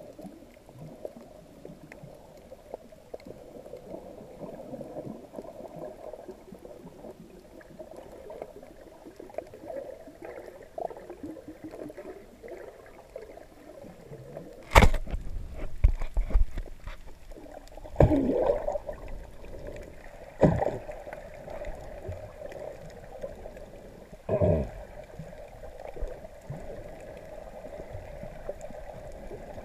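Muffled underwater sound heard through a GoPro's waterproof housing: a steady dull churning of water, broken from about halfway in by four loud knocks and sloshing as the camera is handled and moved.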